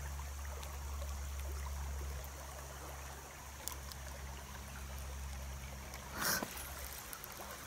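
Shallow mountain creek running over rocks, a steady trickle and rush of water. A little over six seconds in there is one brief, louder swish.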